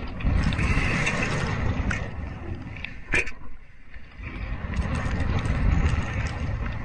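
Wind buffeting the microphone and the sea rushing along the hull of a steel sailing yacht, with one sharp metallic clack about three seconds in as the anchor locker lid is shut.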